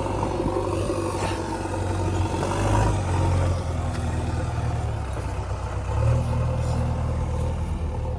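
Heavy diesel engine of working machinery running steadily, revving up briefly about two and a half seconds in and again about six seconds in.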